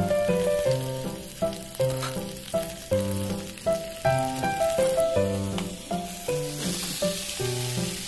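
Melodic background music with a steady beat, over oil sizzling as sliced garlic, shallots and chilies fry in a wok and are stirred with a wooden spatula. The sizzle grows louder near the end.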